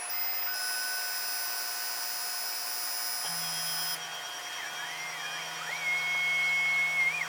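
Planmeca ProMax 3D Classic cone-beam CT scanner running a scan: several steady high electronic whines. A low hum joins about three seconds in, and a tone wavers up and down before holding steady until just before the end.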